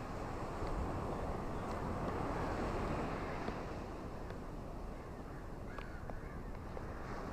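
Ocean surf washing on a beach under steady rain, with a wave swelling about a second in and easing off after about three seconds. A few faint ticks are scattered through the wash.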